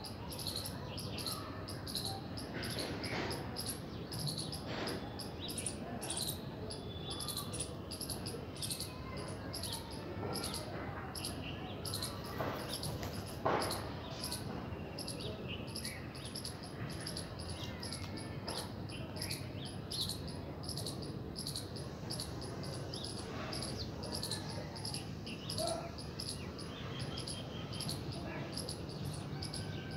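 Fast, regular high-pitched chirping over a steady low background hum, with a few sharp taps, the loudest about halfway through.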